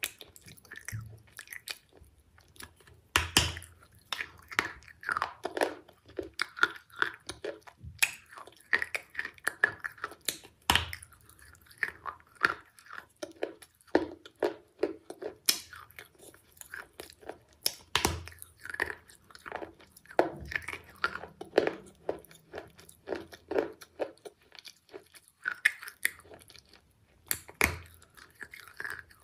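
Close-up mouth sounds of a person biting and chewing a soft, glossy jelly-like food: wet lip smacks and sharp clicks, several a second.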